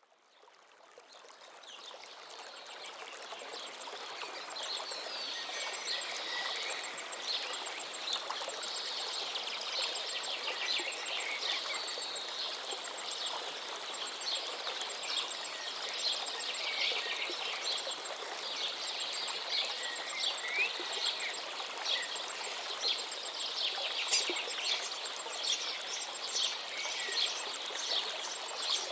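Steady hiss of falling rain with many birds chirping over it, and a rapid high ticking call in the background. It fades in over the first few seconds.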